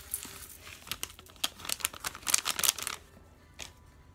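A plastic packet of dried cut seaweed crinkling as it is shaken and emptied into a stainless steel pot of water. The crinkling is loudest just before it stops about three seconds in, and one faint click follows.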